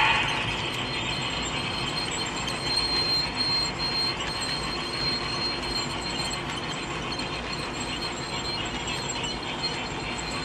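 HO scale model passenger train rolling along the track: a steady rumble of wheels on the rails, with a thin, steady high-pitched squeal over it.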